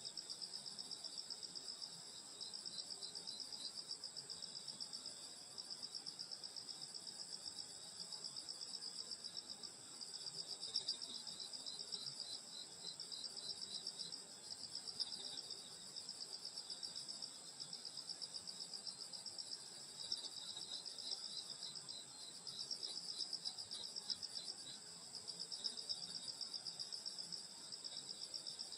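Night chorus of grass insects such as crickets: a steady, high-pitched, rapidly pulsing trill. Over it, another insect chirps in quick runs that come and go, from about a third of the way in and again about two-thirds of the way in.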